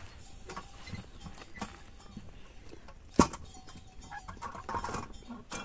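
Open wood fire under a flatbread griddle crackling, with scattered sharp pops and one loud crack a little past three seconds in. Farm animals call faintly in the background.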